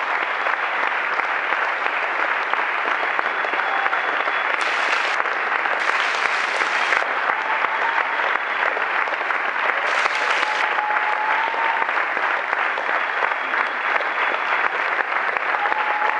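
A large audience applauding, many people clapping in a dense, steady stream that keeps up throughout.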